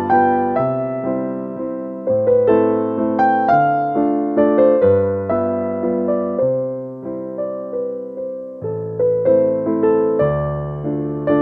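Background music: a gentle piano piece of struck notes and chords that fade away, over a slow bass line.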